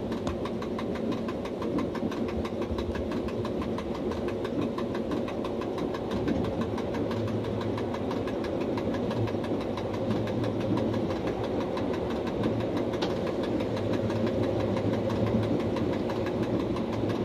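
Electric commuter train running along the line, heard from inside the driver's cab: a steady rumble with a low hum.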